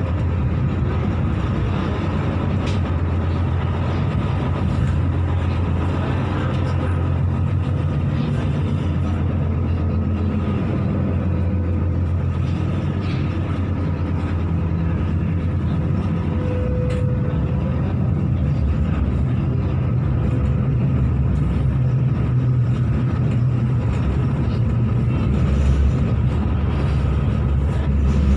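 Steady running rumble of a Hong Kong MTR Light Rail vehicle in motion, heard from inside the car, with a brief faint tone about two-thirds of the way through.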